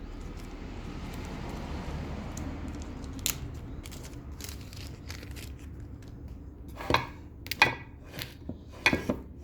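Rustling, like a new seal's plastic packet being handled and opened, for the first few seconds, then a scattering of sharp clicks and knocks from tools and parts being handled on a workbench, coming closer together near the end.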